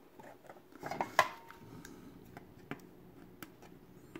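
Hard plastic figure parts clicking and knocking as clear effect pieces are pushed onto a round display base; the loudest knock, about a second in, rings briefly, and a few lighter clicks follow.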